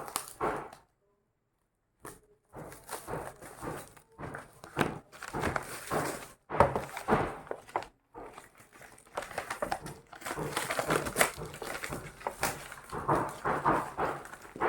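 Packaging being handled and unwrapped, with irregular rustling and crinkling and a brief pause about a second in.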